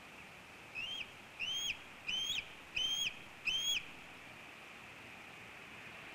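Bald eagle calling: a series of five short, high, thin whistled chirps, each rising and then cutting off, about two-thirds of a second apart.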